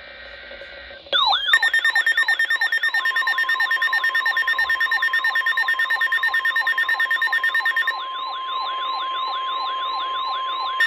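A weather alert radio's alarm starts suddenly about a second in: a loud warbling siren of falling sweeps, about three a second, over a pulsing beep. From about three seconds in it is joined by the steady NOAA Weather Radio 1050 Hz warning tone, the signal that a new warning is about to be broadcast. Before the alarm there is only faint radio hiss.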